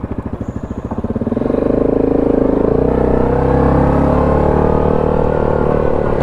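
An ATV engine chugging at low revs, then rising about a second in and holding a steady, louder pull under throttle.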